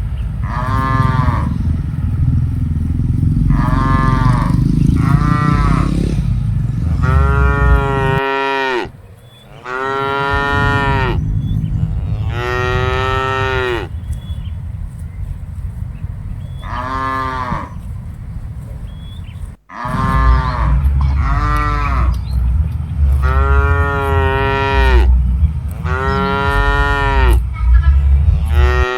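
Cattle in a herd mooing over and over, about a dozen long calls, several overlapping, above a loud low rumbling noise. The low rumble cuts out sharply twice.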